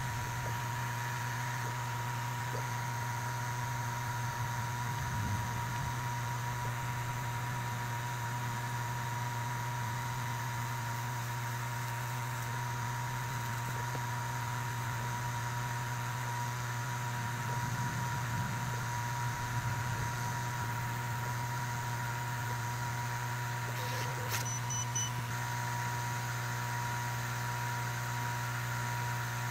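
Laser engraver setup with its air-assist pump switched to high, running steadily: a low, even hum with a thin high tone over it. A small click comes near the end.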